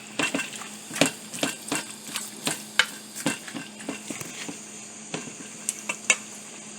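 Spoon stirring curry chicken in a pot, with irregular scrapes and knocks against the pot, about two or three a second, while the curry sizzles.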